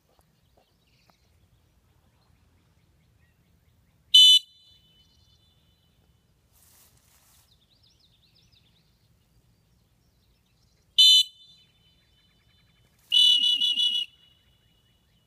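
Retriever trainer's dog whistle: two short, sharp single blasts about seven seconds apart, then a longer, wavering blast near the end. These are whistles stopping the swimming Lab so he can be given a hand cast.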